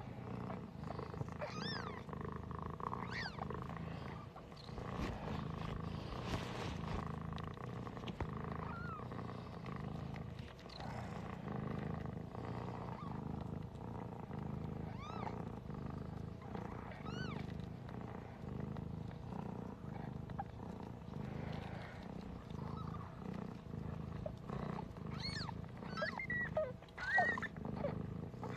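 Siberian mother cat purring steadily while her newborn kittens give short, high squeaks now and then, several together near the end.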